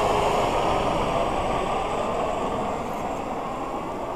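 Helicopter flying past, its steady engine and rotor noise fading as it moves away.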